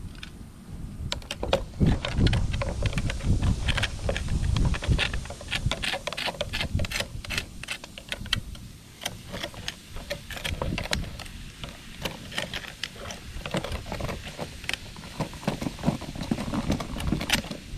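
Rapid, irregular clicks and taps of two metal knife blades knocking and scraping against a rock and a plastic tub of foaming vinegar and baking soda solution.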